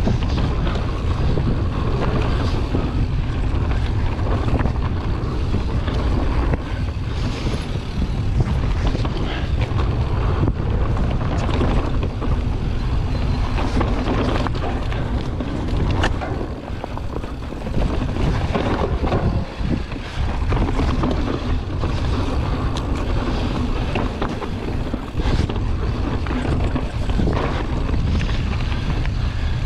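Wind rushing over the camera microphone as a mountain bike runs downhill on a dry dirt trail, with tyres rolling over the ground and frequent knocks and rattles from the bike over bumps.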